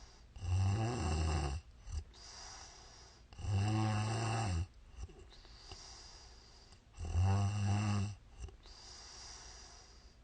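A woman snoring in her sleep: three loud, low snores, each about a second long and about three and a half seconds apart, with softer breaths between them.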